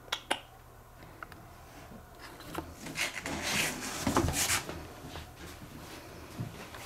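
Cardboard box rustling and scraping as a cat pushes its way out of it: a few light taps near the start, then a longer stretch of rustling from about two and a half to four and a half seconds in.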